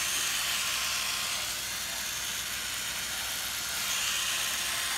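A small electric motor whirring steadily, with an even high hiss.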